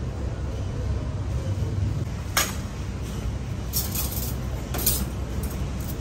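Metal kitchen utensils clinking on steel surfaces, a few sharp clinks about two and a half seconds in and again around four and five seconds, over a steady low rumble of the stall.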